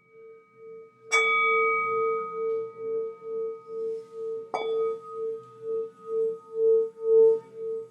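Singing bowl ringing: a steady hum that wavers in loudness about twice a second, struck twice, about a second in and again about three and a half seconds later, each strike ringing out with bright higher overtones.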